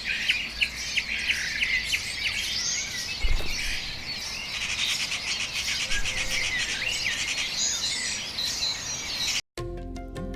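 Many birds chirping and singing at once, a dense chorus of short high calls and trills. It cuts off abruptly about nine and a half seconds in, and background music begins.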